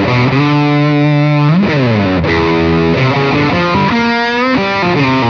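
Electric guitar with humbucking pickups played through a Caline Jaguar Classic High Gain Distortion pedal: a high-gain distorted riff of held notes, with a slide down about a second and a half in and a string bend near four seconds. The pedal's bias knob is set low, at about ten o'clock.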